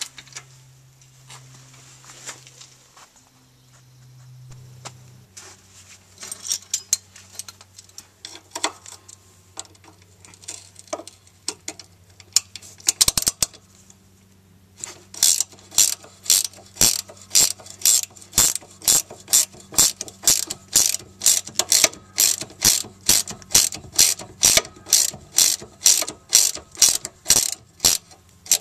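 Ratcheting box-end wrench clicking in a long, even run, about two to three clicks a second, as it loosens a sway bar end-link nut while the stud is held with an Allen key. Scattered clicks and knocks of tools on the suspension come before it.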